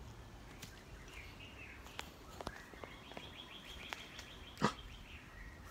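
Footsteps through forest undergrowth, with scattered sharp twig-like clicks and one loud snap about two-thirds of the way through. A bird gives a rapid trill of quick high notes lasting about a second and a half.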